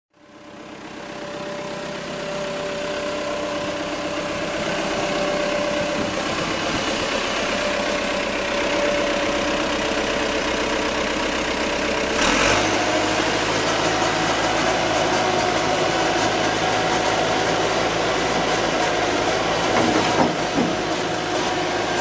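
1995 JCB 217 Series 2 backhoe loader's diesel engine idling steadily. It fades in over the first couple of seconds, with a sudden click about twelve seconds in and another short knock near the end.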